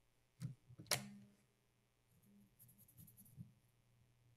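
Light handling sounds from the metal mechanism of a Sony OA-D34V 400k floppy drive being cleaned of old grease with a cotton swab: two small clicks about half a second apart near the start, the second louder, then faint scratchy rubbing and a single soft tick.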